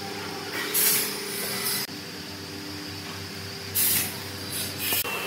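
Steady hum of workshop machinery, broken by short bursts of loud hissing like air being let out: once about a second in, again near four seconds, and briefly just before the end.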